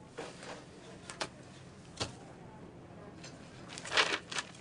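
A few scattered short knocks and clicks at irregular intervals, the loudest a quick cluster of them near the end.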